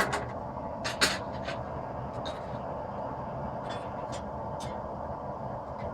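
Steady rushing of a forge running while the 5160 spring steel heats, with scattered light clinks and taps of metal. The sharpest tap is about a second in.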